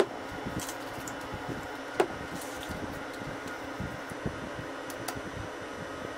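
Steady indoor room noise with a faint mechanical hum, like a running fan, and one sharp click about two seconds in.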